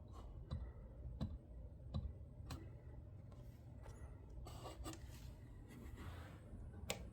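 Faint clicks and light taps over quiet room tone, about one every half-second to second for the first few seconds, then softer rustling.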